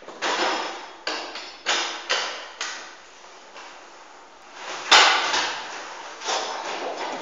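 BMX bike banging down on a concrete floor, about five hits in the first three seconds and the loudest about five seconds in, each echoing off the hard walls.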